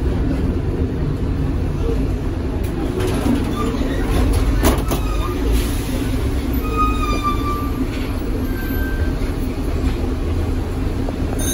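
Tatra KT4D articulated tram running along the track, heard on board: a steady rumble of wheels on rails. About halfway through there is one sharp click, and a little later a brief, faint wheel squeal.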